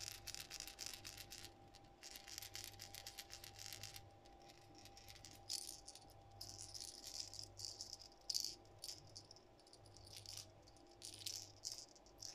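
Rattle balls inside a topwater pencil lure (Duo Realis Pencil 65) clicking as the lure is shaken by hand: two fast runs of rattling in the first four seconds, then sparser, scattered clicks as it is rocked more gently. The rattling is faint.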